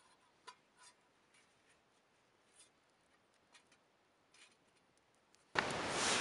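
Faint scattered clicks and light clinks from a small wood campfire and stainless steel camp cups being handled. About five and a half seconds in, a much louder steady rushing hiss cuts in suddenly.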